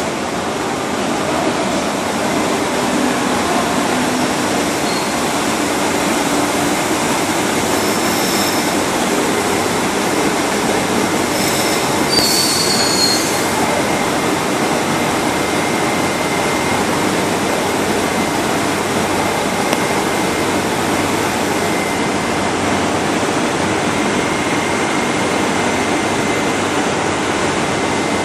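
Madrid Metro Serie 2000 electric train running into an underground station: a steady, loud rumble of wheels on rail, with brief high squeals about eight and twelve seconds in and a faint steady whine underneath.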